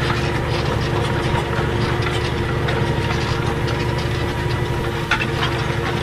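Tractor engine running steadily under load, pulling a reversible plough through the soil, heard from the cab. A few light knocks and rattles come about five seconds in.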